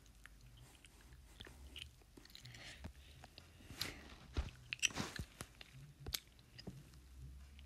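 Someone chewing gum close to the microphone: faint, irregular wet smacks and clicks, busiest around the middle.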